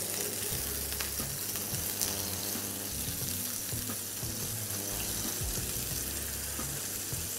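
Slices of slow-cooked pork belly sizzling steadily as they are laid into a hot frying pan.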